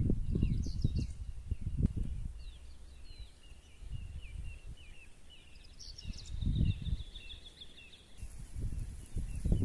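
Small birds chirping repeatedly, with a rapid trill about two-thirds of the way through, over low gusts of wind rumbling on the microphone.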